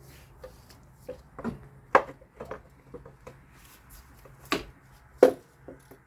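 Clicks and knocks of hard plastic and metal parts being handled as an ignition coil assembly is flipped over and set back in place: a scattered series of sharp taps, three of them louder, about two seconds in and twice near the end.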